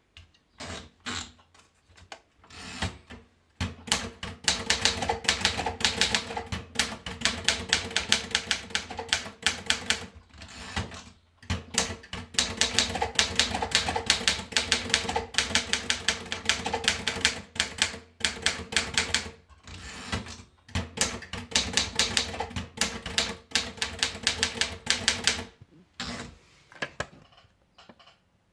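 Remington Rand 2000 typewriter being typed on quickly, a dense run of key clicks broken by a few short pauses. The typing stops near the end, with a few scattered clicks after it.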